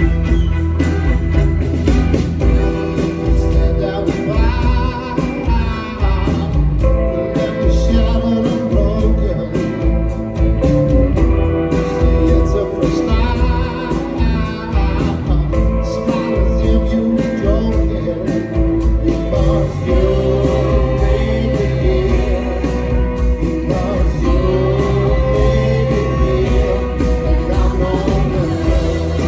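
Rock band playing live with a lead singer: vocals over a full band with a heavy bass line, loud and steady.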